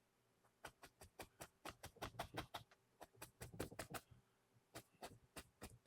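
Fan brush loaded with oil paint being tapped and dabbed onto a canvas to stipple in small trees: quick runs of soft taps, several a second, with short pauses between runs.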